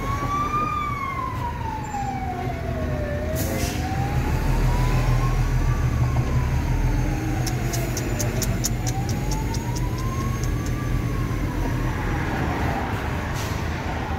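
Emergency-vehicle siren on a slow wail, its pitch rising and falling about every five seconds, over a low, steady engine rumble from the vehicle stuck in traffic.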